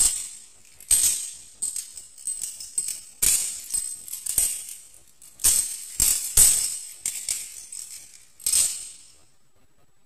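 Balisong (butterfly knife) being flipped: its metal handles swing and clack against each other and the blade, making an irregular run of sharp metallic clicks and jingling rattles that stops near the end.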